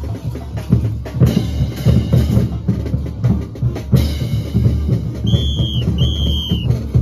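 Street band's bass drums and hand cymbals beating a caporales dance rhythm, with cymbal crashes about a second in and again around four seconds. Two short high whistle notes sound near the end.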